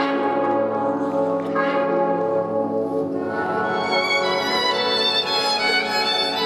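Orchestral program music for a figure skating free skate, played over the rink's sound system: held notes with a bell-like stroke about one and a half seconds in, then a violin melody over the orchestra from about three seconds in.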